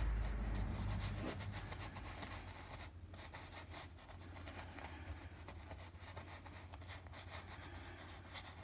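Paintbrush stroking and dabbing on a canvas, faint and scratchy. A low rumble fades out about a second in.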